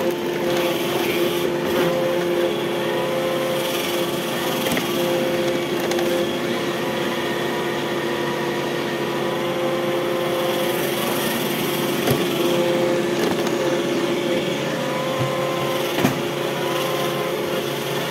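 Robot vacuum cleaner running and driving along, heard close up: a steady motor hum with two held tones, with a couple of light knocks.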